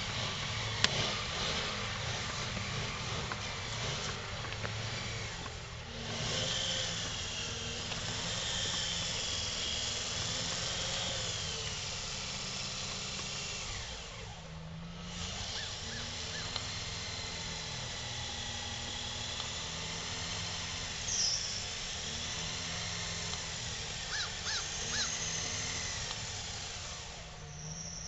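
Lincoln LS stuck in snow and ice, its engine revving up and down as the driven wheels spin without grip, the tires giving a high wavering whine against the ice. A few sharp clicks come through, rocks and ice flung from the wheels hitting a car parked behind it.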